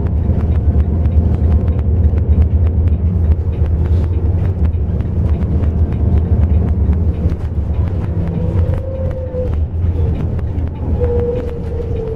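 Intercity bus driving, heard from inside the cabin: a steady low engine and road rumble with frequent small rattles. Near the end a faint whining tone slides down in pitch.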